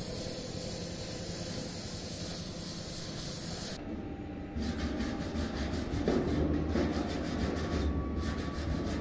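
Gas welding torch flame hissing steadily on a steel diesel tank fitting, then stopping about four seconds in; a wire brush then scrubs back and forth over the fresh weld in repeated scraping strokes.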